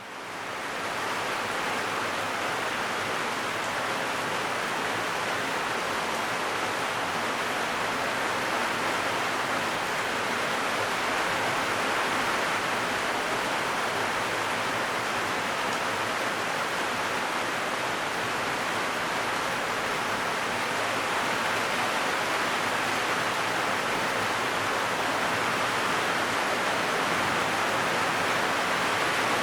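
Heavy rain hitting a zinc roof: a dense, steady hiss of countless drops on the metal, fading in over the first second and then holding even.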